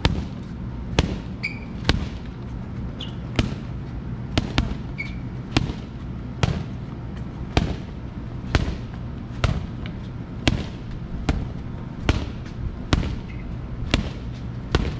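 Boxing gloves striking focus mitts: sharp slaps a little more than once a second, at times two in quick succession.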